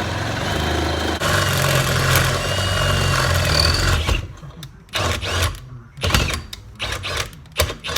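Electric hand drill boring out bolt holes in a steering-wheel mounting plate. It runs steadily for about four seconds, then is triggered on and off in several short bursts.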